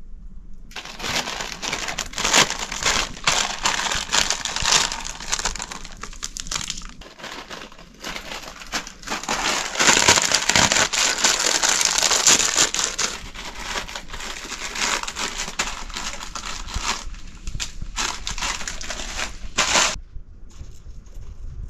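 Plastic packaging crinkling as it is crumpled and crushed by hand, a dense crackle that starts about a second in, is loudest in the middle and stops abruptly shortly before the end.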